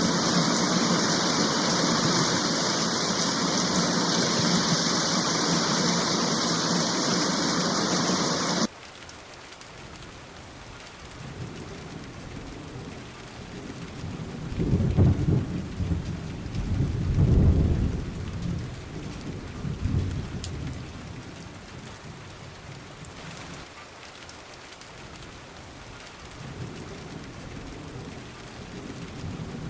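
A loud, steady rush of heavy rain or water cuts off abruptly about nine seconds in, giving way to quieter steady rain. Over it, low rolling thunder rumbles swell and fade several times through the middle, and another rumble builds near the end.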